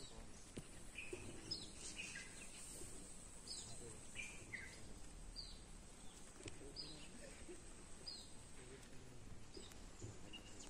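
Birds calling faintly: a short, falling high note repeated about every one and a half seconds, with lower chirps in between, over a quiet outdoor hush.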